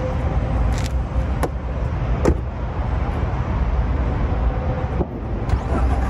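Car door being opened and shut: a few clicks and one sharp knock about two seconds in, as the driver's door closes, over a steady low rumble.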